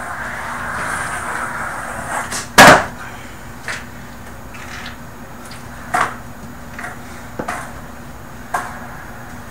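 Skateboard rolling over carpet, then a loud clack of the board hitting the floor about two and a half seconds in, followed by several lighter knocks and clacks of the board.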